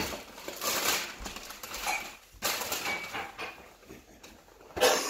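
Gift-wrapping paper rustling and tearing as a present is unwrapped, in several crinkly bursts, the loudest near the end.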